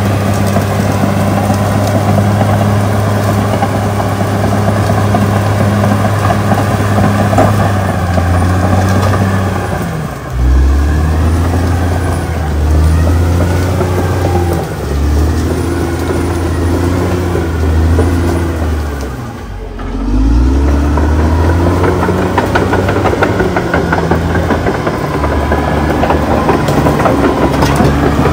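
CAT D6R XL bulldozer's diesel engine running under load as it pushes through brush. The engine note drops twice, about ten seconds in and again near the middle, and picks back up each time.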